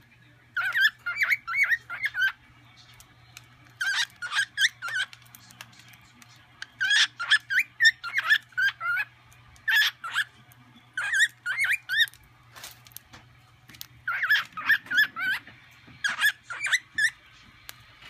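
Cockatiel singing in phrases of quick warbling chirps and whistles, each one to three seconds long with short pauses between.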